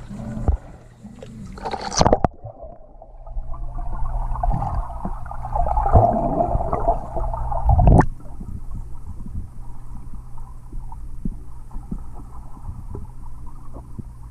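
Water splashing about two seconds in, then the muffled bubbling and gurgling of a swimming pool heard from underwater as a child swims past, with a sharp knock about eight seconds in.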